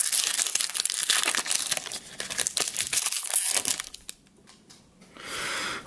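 Foil booster pack wrapper crinkling and crackling as it is torn open by hand, dense for about three and a half seconds, then dying away. A short soft rustle comes near the end.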